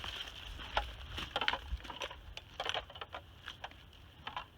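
Dry leaves and twigs crunching and snapping underfoot in leaf litter: an irregular scatter of small crackles.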